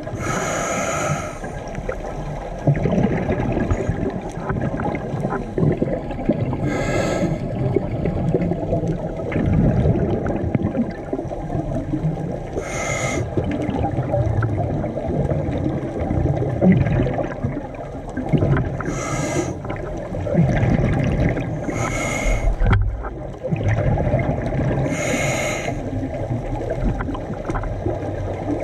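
A scuba diver breathing through a regulator underwater. Six hissing inhalations come a few seconds apart, each with a faint whistle from the regulator, and between them exhaled bubbles rumble and crackle.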